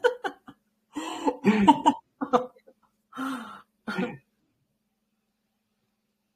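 Several short bursts of a person's voice without clear words, spread over about four seconds, then the sound cuts off to silence.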